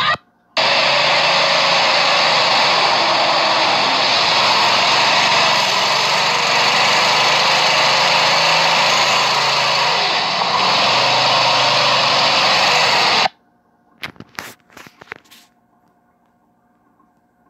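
Small engine of a motorized drift trike running hard with a steady, loud, even noise, then cutting off abruptly, followed by a few faint clicks.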